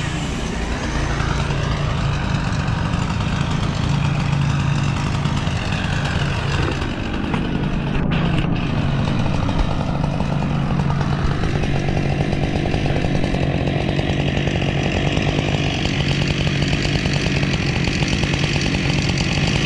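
Chainsaw cutting into a tree trunk during felling cuts, its engine running steadily under load. The pitch dips and recovers once, about six to seven seconds in.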